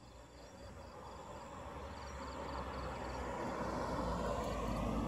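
A vehicle approaching on the road, its engine and tyre noise growing steadily louder.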